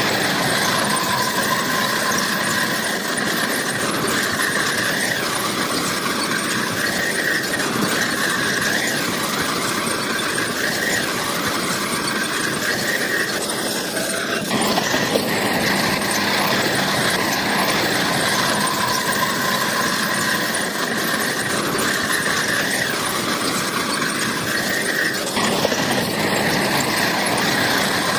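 Bulldozer working, its steel crawler tracks squealing over the steady engine noise. The squeal wavers in pitch, breaks off about halfway through, then comes back and cuts out again near the end.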